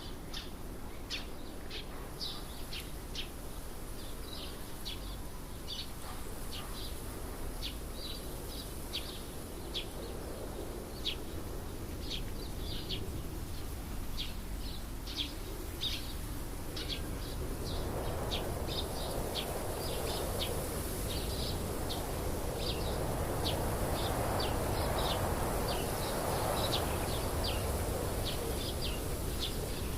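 A bird chirping repeatedly, short high chirps a little more than one a second, over steady outdoor background noise that grows louder in the second half.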